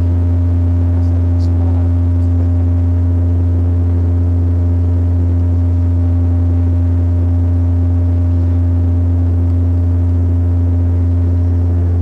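Embraer 120 Brasilia twin-turboprop drone heard from inside the cabin: a loud, steady deep propeller hum with fainter steady tones above it, unchanging, as in level flight or climb.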